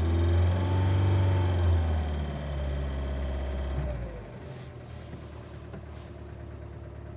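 VAZ-2107's four-cylinder engine revved briefly, its revs rising and then falling back, settling to a steady idle about four seconds in.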